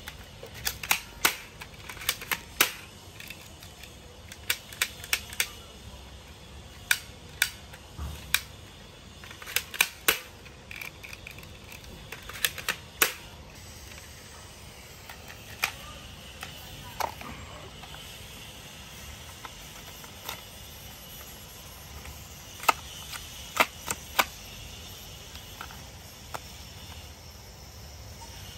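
Hard plastic toys being handled, mostly a toy assault rifle: irregular sharp plastic clicks and clacks in scattered groups, with quieter stretches between them.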